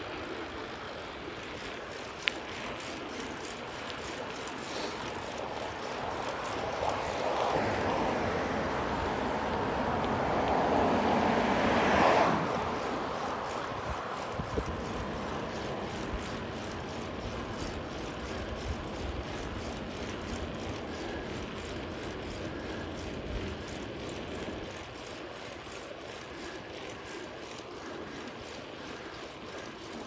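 Bicycle ride along a road: a steady rush of wind and road noise that swells to a louder rush, peaking about twelve seconds in and dropping off suddenly.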